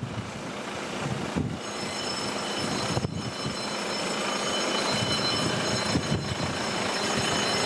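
Strong wind buffeting the microphone. A steady high-pitched whine of several tones comes in about a second and a half in and grows slowly louder.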